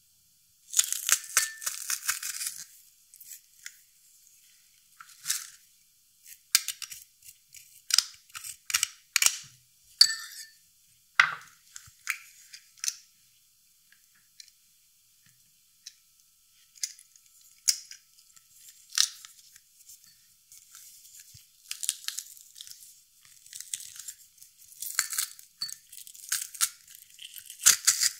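Close-miked stainless steel garlic press and peeled garlic cloves being handled: scattered small clicks and clinks as cloves are fitted into the press, then crackling and crunching as garlic is squeezed through it, loudest near the end.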